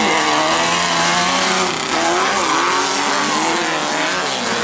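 Engines of tube-frame off-road racing buggies running hard on a dirt track, their pitch rising and falling as the drivers rev.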